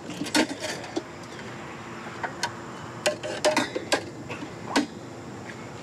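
Stainless steel cookware clanking as it is handled: a dozen or so sharp metal knocks in irregular clusters, a few ringing briefly.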